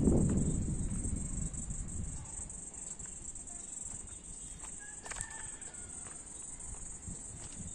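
Insects buzzing steadily at a high pitch. A low rumbling noise fades away over the first couple of seconds, and a brief bird call sounds about five seconds in.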